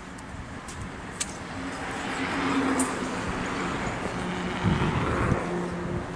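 A car passing, its engine and tyre noise swelling over a few seconds and easing off near the end, with a few light clicks.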